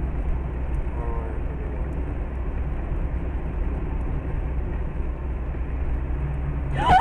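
Steady low road and engine rumble of a moving car, recorded by a dash camera inside the cabin, with a faint voice about a second in and a voice starting right at the end.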